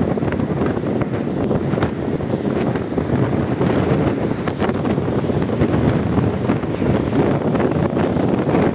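Strong storm wind buffeting the microphone: a dense, steady low rumble with brief gusty crackles.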